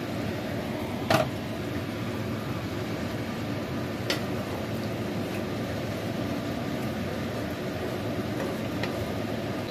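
Utensils knocking against a wok of curry: a sharp knock with a short ring about a second in, and a lighter knock about three seconds later. A steady kitchen hum runs underneath throughout.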